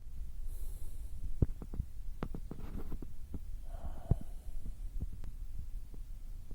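Noises around a sleeping person: a steady low rumble with irregular soft clicks and knocks, and a brief breathy sound just before four seconds in.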